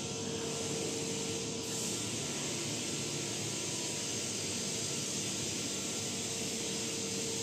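Steady machine drone with a held hum tone running underneath, even and unchanging.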